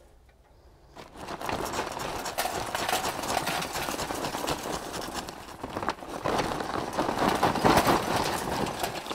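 Lumps of charcoal poured from a bag into a stainless steel chimney charcoal starter, a dense clattering rattle that starts about a second in and keeps going until near the end.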